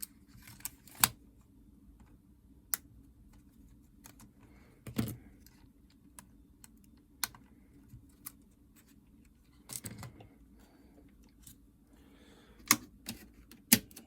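Scattered light clicks and taps of small tools and plastic parts being handled while a Nintendo DS Lite is taken apart on the bench, over a faint steady hum. The sharpest clicks come about a second in and twice near the end.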